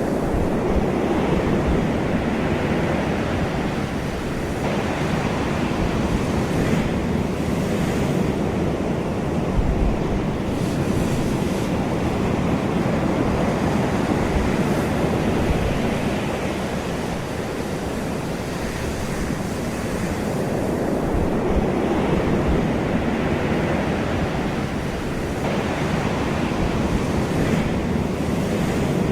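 Ocean surf washing onto a shore: a continuous rush of breaking waves that slowly swells and subsides every several seconds.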